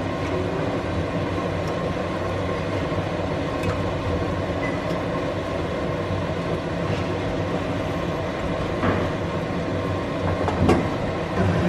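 Steady machine-like whirring hum in a kitchen during cooking, with a few light clicks about four, nine and eleven seconds in.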